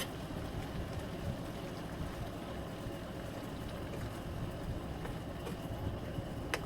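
Chicken pieces frying in a pot with spices and sour yogurt over a stove: a steady low rumble with faint sizzling crackles, and one sharp click near the end.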